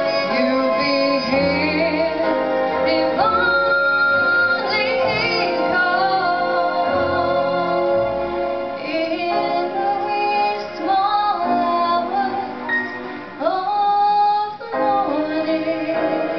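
A woman singing a slow song live into a microphone over instrumental accompaniment, holding long notes with vibrato.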